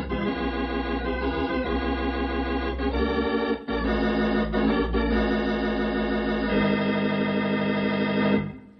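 Organ music bridge between radio-drama scenes: held, slightly wavering organ chords that change twice, about three and a half seconds in and again near seven seconds, then fade out near the end.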